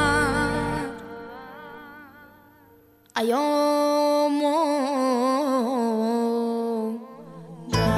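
Background music. One piece fades out over the first few seconds, then about three seconds in a new, bass-less melody with a wavering, sliding pitch starts suddenly. Near the end, fuller music with a heavy bass cuts in.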